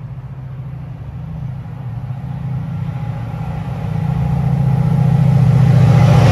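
Class 68 diesel-electric locomotive's V16 Caterpillar engine drawing nearer with a steady low drone, growing louder throughout. Wheel-on-rail noise joins near the end as it reaches the platform.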